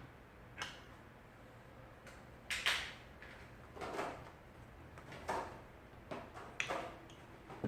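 Handling sounds from setting a phone onto an LCD disassembly jig: about five separate short knocks and scrapes, the loudest a little over two and a half seconds in.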